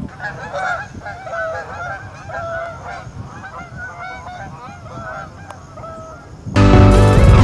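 Geese honking, many short overlapping calls, densest in the first couple of seconds and thinning out after. Loud electronic music cuts in near the end.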